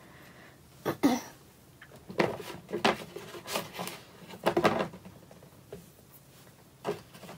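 Washi tape rolls being handled, picked up and set down: a series of irregular knocks and handling noises.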